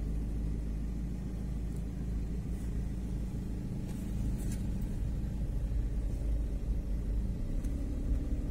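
Car engine and road noise heard from inside the cabin: a steady low rumble as the car pulls away from a stop and drives on, a little louder about halfway through.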